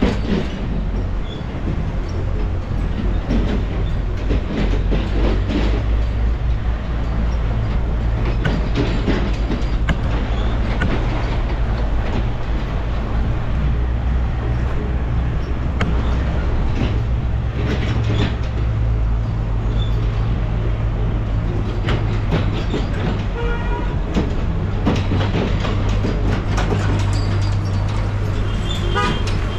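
Motor vehicle driving along a rough, bumpy mountain road: a steady low engine rumble with constant rattling and knocking.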